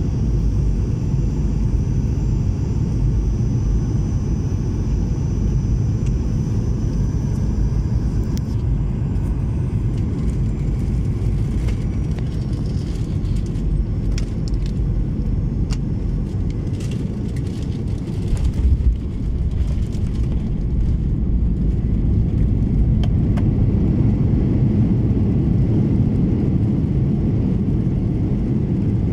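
Cabin noise inside a Boeing 737 airliner landing: a steady low rumble of engines and airflow as it comes down onto the runway and rolls along it, with scattered rattles and clicks and a single thump about two-thirds of the way through.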